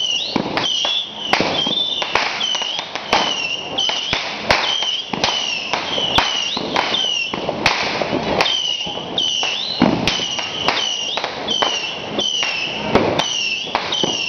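Firecrackers going off in irregular sharp cracks and bangs, with a high chirping tone repeating over and over and voices underneath.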